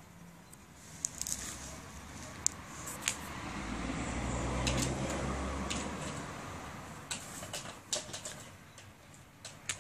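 Plastic treat ball knocked and rolled along the ground by a Siberian husky, giving scattered sharp clicks and knocks. A low rushing noise swells and fades in the middle.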